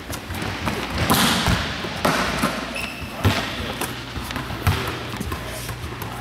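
Volleyballs bouncing on a hardwood gym floor: a few scattered thumps about a second apart, the loudest a little over three seconds in.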